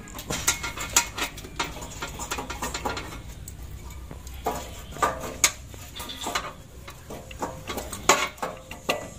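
Irregular metallic clinks and knocks as the turbocharger is handled and worked loose from the engine, with the sharpest knocks about five seconds in and near the end.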